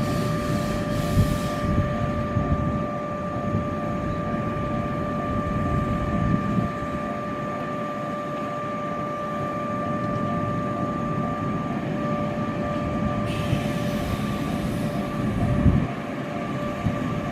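Electric train sounding close by: a low rumble with a steady high whine, and a hiss of air near the start and again about thirteen seconds in.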